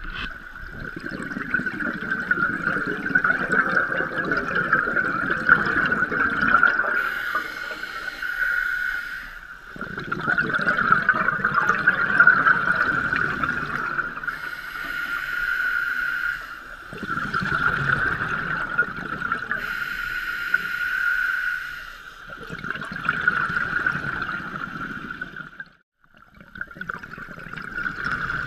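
Scuba diver breathing through a regulator underwater: about four long bubbling, gurgling exhalations, each followed by a shorter hissing inhalation, over a steady high whine.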